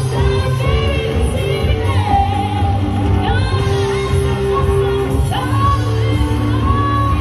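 Live band playing amplified music, with a singer over electric guitars and a strong bass.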